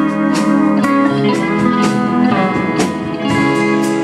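A band playing an instrumental passage between vocal lines, with guitar over sustained chords and a drum beat about twice a second.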